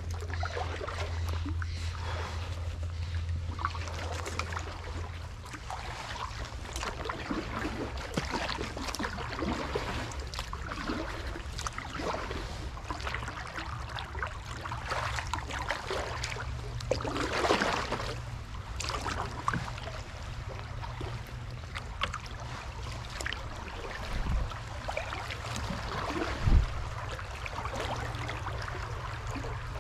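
Canoe paddle strokes in floodwater: splashing and dripping water, with a louder swish of a stroke about halfway through and two dull thumps near the end.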